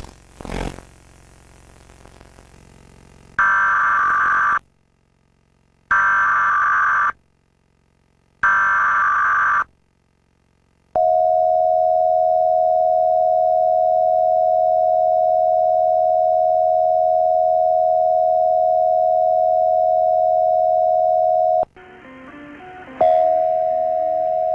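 Emergency Alert System test signal, pitched down: three buzzy bursts of SAME header data, each about a second long and a couple of seconds apart, then the long steady attention tone, held for about ten seconds. Near the end the tone breaks off, a rougher sound comes in, and the tone starts again.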